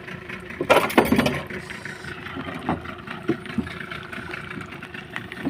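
Boat engine running steadily at low revs, with a short cluster of sharp knocks and rattles about a second in and a few lighter clicks later.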